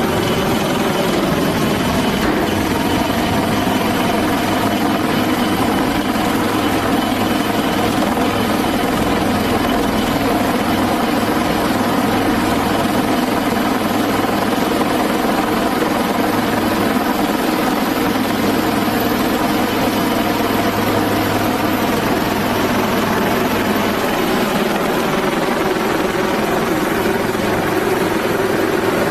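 HAL Dhruv twin-turboshaft helicopter hovering close overhead: steady, loud rotor and engine noise with a thin high whine that does not change.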